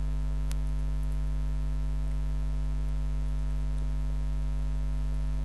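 Steady low electrical mains hum with evenly spaced overtones, with one faint click about half a second in.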